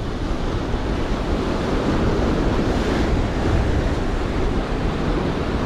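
Sea surf washing and breaking over boulders, a steady rush of churning water, with a head-on wind buffeting the microphone.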